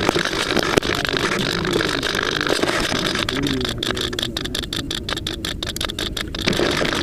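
Steady hissing rush of noise with faint voices beneath it. From about three seconds in, the noise is chopped by rapid, regular dropouts, several a second, until shortly before the end.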